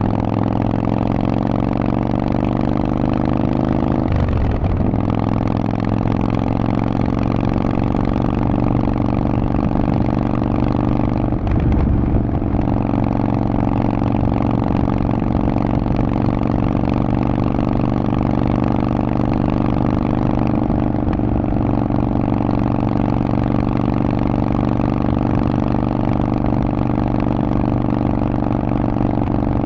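Harley-Davidson Forty-Eight's air-cooled 1200 cc V-twin running through a Vance & Hines exhaust at a steady engine speed. The note briefly breaks and shifts twice, about four and twelve seconds in.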